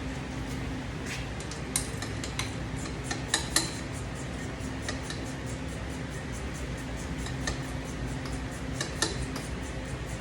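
Metal tools and engine parts clinking and tapping during a motorcycle cylinder teardown: scattered sharp clinks, a couple of louder ones a few seconds in, over a steady low hum.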